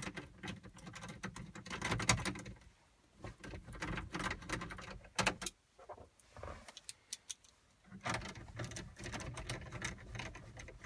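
Light, irregular clicking and rattling of a hand tool against plastic dash trim as the trim around a car stereo is screwed down, with brief pauses about three seconds in and again past the middle.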